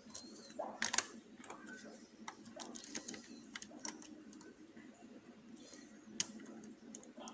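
Lock pick and tension tool working inside a lock: a run of small metal clicks and scrapes as the pick moves in the keyway, with two sharper clicks, one about a second in and one near the end.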